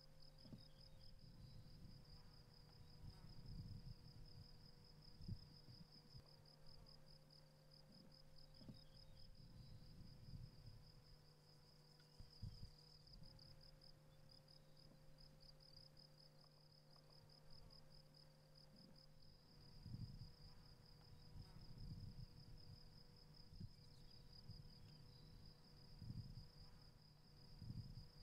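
Near silence, with a faint, steady high-pitched insect trill pulsing rapidly throughout and a low steady hum underneath.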